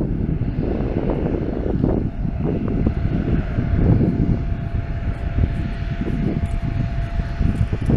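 Ryanair Boeing 737-800's CFM56 turbofan engines at takeoff power during the runway roll: a deep, continuous jet rumble, joined by a steady whine about three seconds in.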